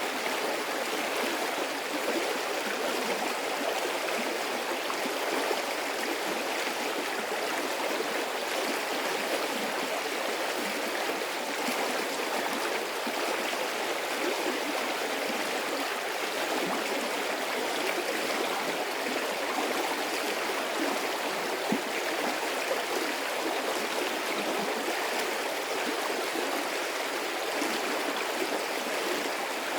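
A medium-sized stream of water running steadily, a continuous rush with small gurgles and splashes.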